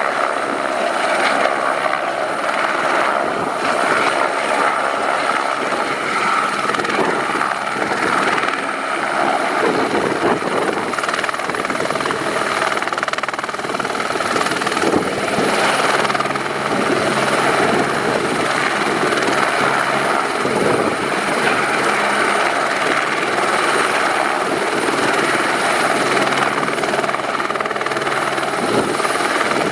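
Airbus H125M helicopter's turbine and rotor running steadily, with a continuous high turbine whine over the rotor noise.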